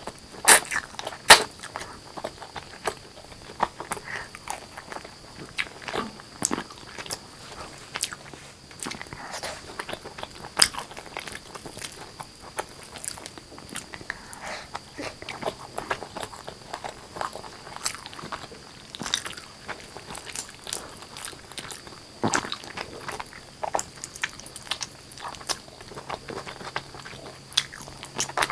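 Close-miked eating sounds: a person chewing mouthfuls of chicken curry and rice, with many irregular sharp clicks and some crunching. A faint steady high-pitched tone runs underneath.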